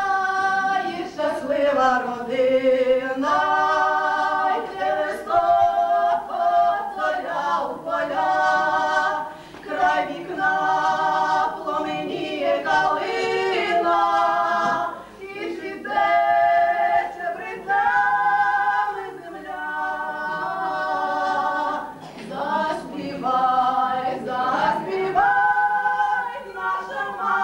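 Two women singing a Ukrainian folk song together without accompaniment, in phrases of long held notes.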